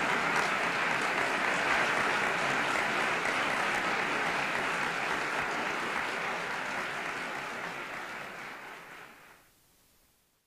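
Audience applauding, a dense steady clapping that fades over the last couple of seconds and then cuts off to silence.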